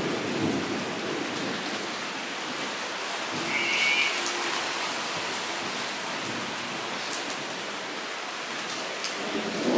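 Steady rain falling into a shallow puddle on paved ground, with scattered sharp drop splashes. A brief high-pitched sound about three and a half seconds in, and a low rumble of thunder starting near the end.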